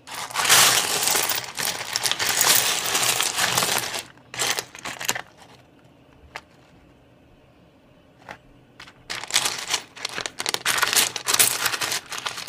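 Rough opal stones clattering and clicking against each other as a hand rakes through a pile of them. Two spells of dense clatter, with a quieter few seconds in the middle broken by a couple of single clicks.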